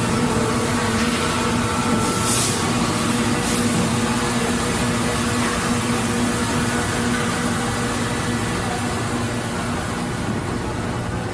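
Factory machinery noise: a steady hum and clatter of assembly-line machines, with a short hiss about two seconds in.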